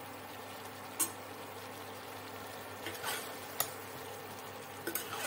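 A steel spoon stirring keema and onions frying in oil in a stainless pressure cooker, over a faint steady sizzle. The spoon knocks or scrapes against the pot a few times as sharp clicks.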